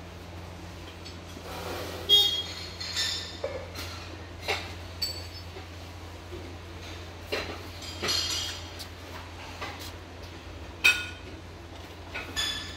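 Glazed ceramic crockery clinking now and then: about ten sharp knocks with short, bright ringing, the loudest about two seconds in and again near the end, over a steady low hum.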